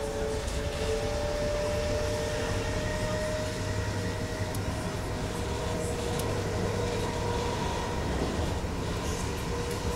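Traction motors and Bombardier MITRAC IGBT inverter of a DB Class 422 electric multiple unit whining as the train runs, heard from on board: several thin tones that drift slowly in pitch over a steady low rumble from the running gear.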